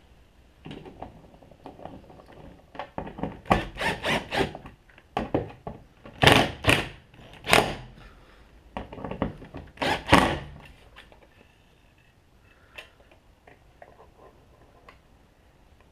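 Plastic fuel door parts being handled and pressed into place on a pickup's fuel filler: a run of sharp clicks and knocks, loudest about six and ten seconds in, then a few faint ticks.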